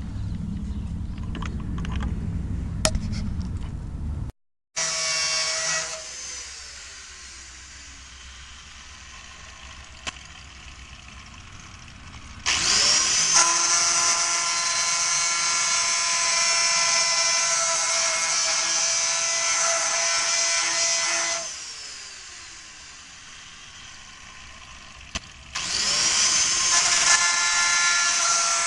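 Electric angle grinder switched on three times: each time it spins up to a steady high whine, and the first two times it is switched off and winds down with a falling whine. A low rumble with a few clicks comes before it in the first four seconds.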